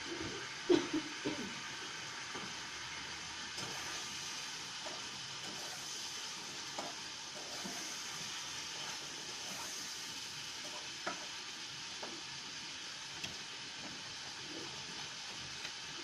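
Steady background hiss with scattered faint ticks and clicks, and a few louder taps just under a second in.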